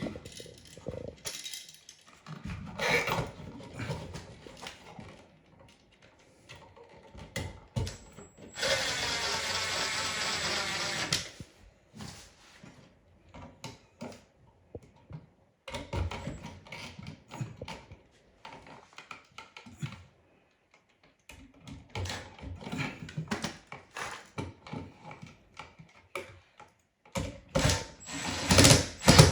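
Power drill running steadily for about three seconds, about nine seconds in, among scattered clicks and knocks of tools and hardware being handled.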